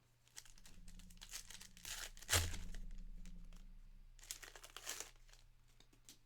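Wrapper of a pack of baseball trading cards being torn open and crinkled, with a sharp rip about two and a half seconds in and more crinkling near the end.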